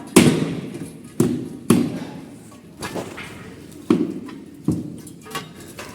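A series of heavy knocks at irregular intervals, about five in all, each ringing out briefly.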